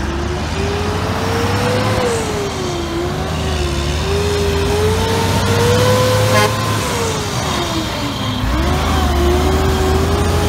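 Heavy dump truck's diesel engine pulling away and accelerating past. The engine note climbs and drops back several times as it shifts through the gears, with a deep dip about eight seconds in, over a steady low rumble.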